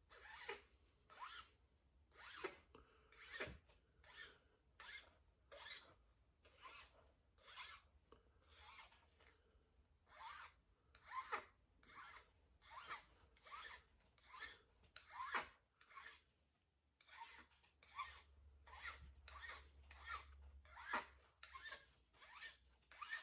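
Small hand file rasping in short, even strokes, about one and a half a second, across the end of a curly cherry hammer handle. The strokes are faint, with a short pause about two-thirds of the way through.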